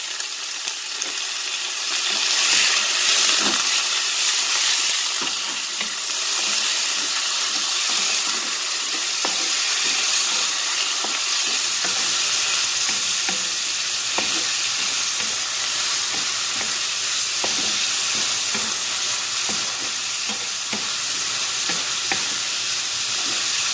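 Mixed seafood, onion, garlic and carrot sizzling in hot oil in a black wok. The frying hiss is steady and gets louder about two seconds in. A wooden spatula stirs and scrapes against the pan throughout.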